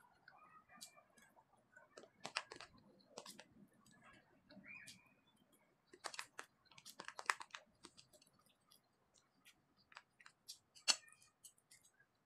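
Faint, irregular clicks and taps of chopsticks against a plastic food container as noodles are picked up, with soft chewing in between.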